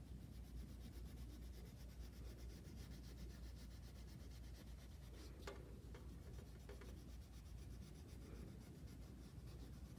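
Faint scratchy rubbing of a crayon shading back and forth on paper, over a low steady hum, with a few light ticks about halfway through.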